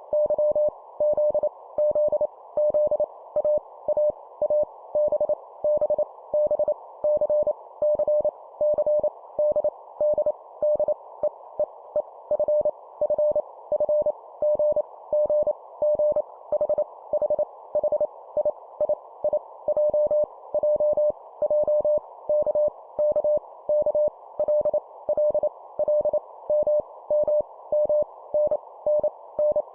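Morse code (CW) sent at 25 words per minute as a single tone of about 600 Hz, keyed on and off in dots and dashes, with each letter repeated three times. A steady band of hiss lies under the tone, like a receiver's filtered noise.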